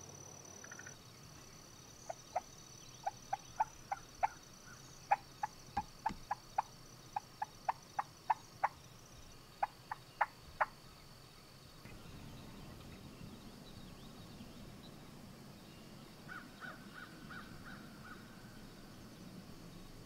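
Osceola wild turkeys calling: a loose run of about twenty short, sharp clucks over eight seconds, then a quick, brief run of notes about three-quarters of the way through.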